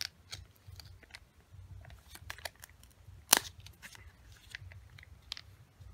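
A small moisturiser sample sachet handled and turned over in the fingers: faint, scattered crinkles and clicks, with one sharper click a little past halfway.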